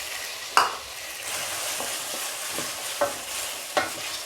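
Onions and tomatoes frying in hot oil in a kadai, sizzling steadily, while a spatula stirs and scrapes against the pan in about five sharp strokes. The loudest stroke comes about half a second in.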